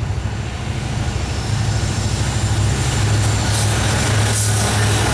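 Two EMD SD70ACe diesel locomotives, each with a two-stroke V16 engine, hauling a loaded coal train as they approach and come alongside. Their engine drone grows louder as they near, and wheel-on-rail noise builds toward the end.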